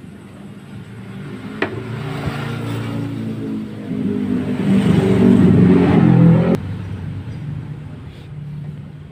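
A motor vehicle engine nearby, growing louder and rising slightly in pitch as it revs, then dropping off abruptly about six and a half seconds in, leaving a lower engine hum. A single sharp click sounds about a second and a half in.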